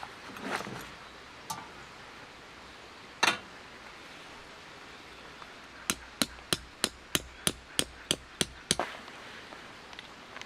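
Hammering: one loud sharp strike, then a steady run of about ten sharp strikes at roughly three a second.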